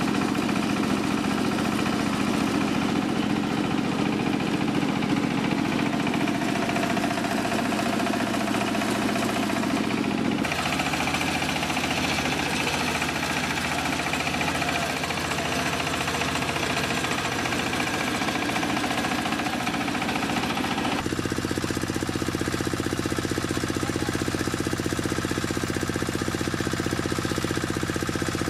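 A belt-driven mini rice mill running on a diesel engine: steady rapid engine knocking under the mill's grinding noise. The sound changes abruptly twice.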